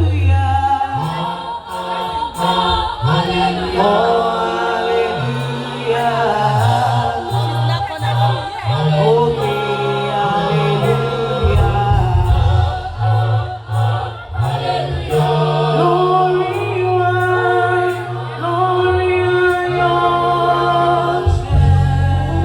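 A choir singing a gospel song, several voices together over steady, stepping low notes.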